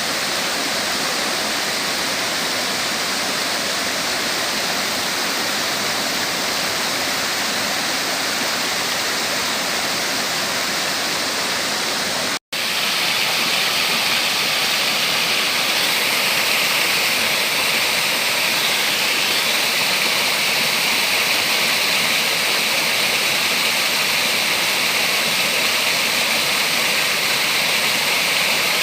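Waterfall: the steady rush of water falling. There is a short break about twelve seconds in, after which the rush is a little louder and brighter.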